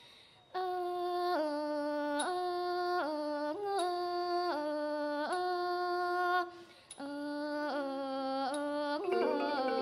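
Thai classical singing, unaccompanied: a vocal line of held notes stepping up and down, with slight wavering on the held tones and a breath pause after about six and a half seconds. Near the end the instrumental ensemble comes in under the last note.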